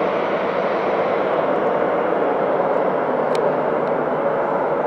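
Airbus A321-200 jet engines at takeoff thrust during the takeoff roll, a steady even rush of jet noise heard across the airfield. A brief faint click about three and a half seconds in.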